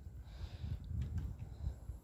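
Quiet outdoor background: a faint low rumble with a few soft taps.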